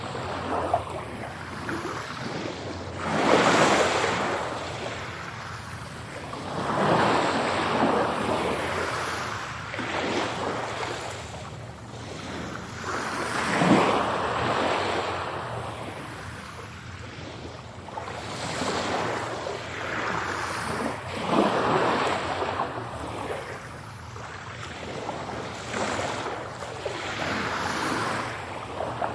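Ocean waves breaking, the surf swelling and falling away every three to five seconds.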